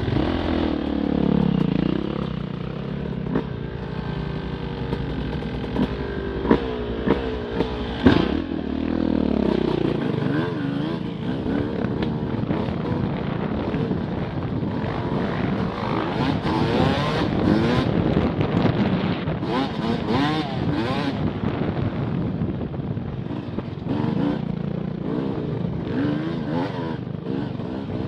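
Off-road motorcycle engines riding a trail, the revs rising and falling again and again, with a few sharp knocks from the bikes about six to eight seconds in.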